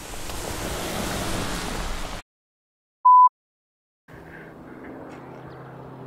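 City street noise with a car driving up, cut off abruptly about two seconds in. After a second of silence comes a single short, loud, high-pitched beep like a test tone, then silence again, and near the end a steady humming street ambience returns.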